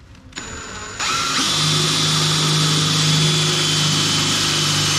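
Power drill boring into metal: it starts softly, then about a second in speeds up with a rising whine and runs steady at full speed.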